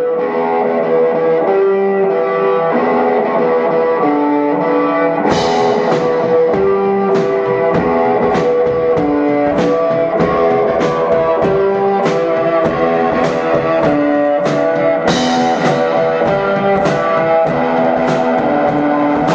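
Rock music soundtrack led by guitar, with held melodic notes at first and a drum beat with cymbal crashes coming in about five seconds in.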